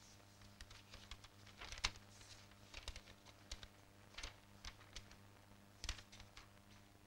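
Pages of a bound file binder being leafed through by hand: irregular paper rustles and snaps, the loudest about two seconds in and again near six seconds. A faint steady hum runs underneath.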